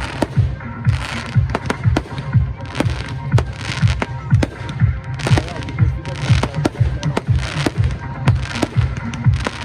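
Fireworks display set to music: rapid shell bursts and crackling showers bang several times a second over music with a steady beat.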